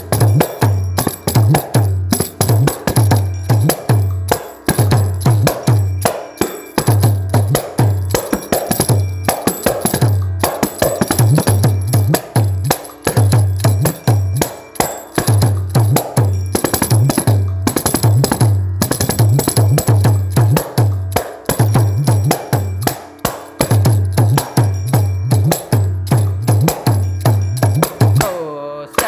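Kanjira, the small Carnatic frame drum with a single jingle, played solo in fast rhythmic patterns of sharp hand strokes, strong low bass tones and jingle rattle. Near the end the drumming stops and a voice starts singing.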